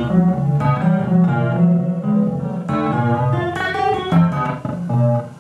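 Improvised music on a plucked string instrument: a quick, uneven run of plucked notes that ring into one another.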